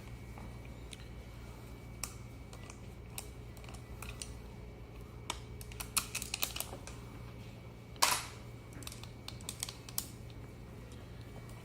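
Irregular light clicks and knocks of metal tools and parts being handled while taking the wheel off an electric scooter, with one louder clatter about eight seconds in.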